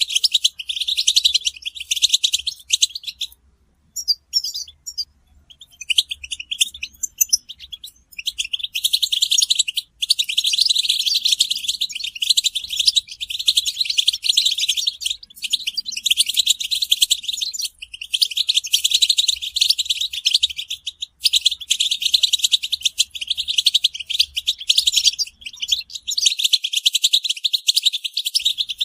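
European goldfinches chattering in fast, dense twittering calls, the excited group chatter used to stir a male goldfinch into song. The calls thin to a few scattered notes about four seconds in, then come back thick and continuous.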